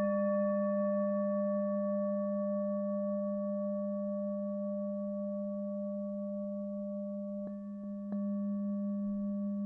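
A hand-held Tibetan singing bowl ringing with a steady low hum and a few higher overtones, struck again lightly twice near the end.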